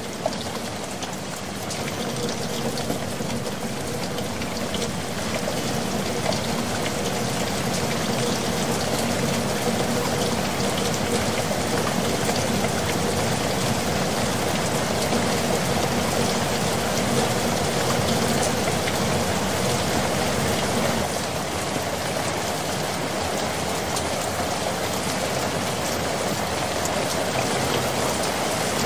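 Heavy rain falling steadily on streets and pavement, a dense, even downpour with a slight drop in level about twenty seconds in.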